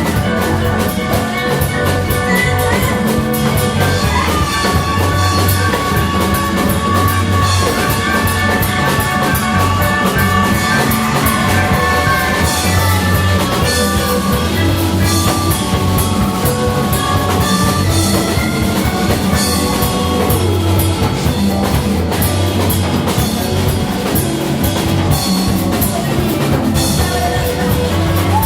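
Loud band music with a steady rock drum beat and sustained melodic instrument lines.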